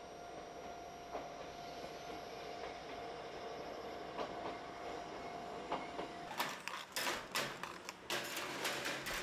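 Choshi Electric Railway train running along the track, a steady rumble with one held tone and an occasional faint click. About six seconds in, this gives way to a louder, dense clatter of clicks and crackle.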